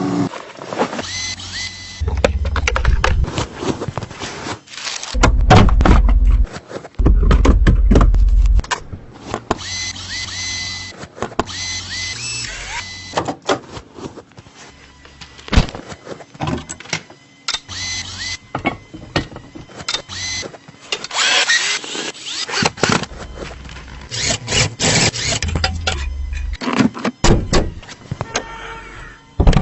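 Hands-on work on a car interior: irregular knocks, clicks and rattles of parts and tools being handled, with some short squeaks. Several bursts of low rumble come in the first nine seconds or so.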